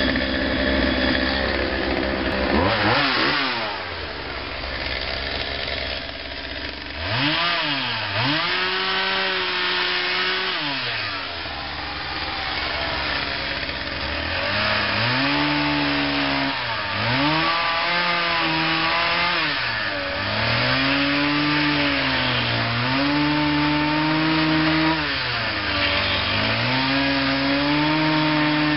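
Chainsaw engine revved up and held at high speed again and again, dropping back toward idle between runs of a few seconds each.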